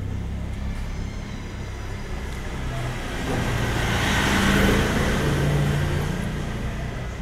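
A motor vehicle going past: a low engine rumble that swells to its loudest a little past the middle, then fades.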